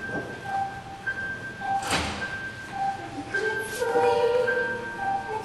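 Show band music: a sparse figure of single held notes alternating high and low, joined by fuller chords from about three and a half seconds in. One sharp thump about two seconds in.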